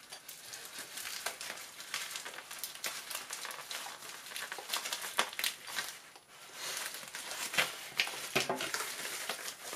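Bubble-lined plastic mailer bag crinkling as it is cut open with scissors and pulled apart by hand: a run of sharp snips and crackles, with a short pause about six seconds in.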